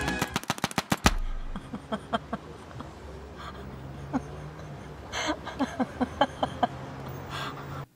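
A paintball marker firing rapidly, about ten sharp pops in the first second. Then quieter: a woman's soft, breathy laughter over a low steady hum, which cuts off suddenly near the end.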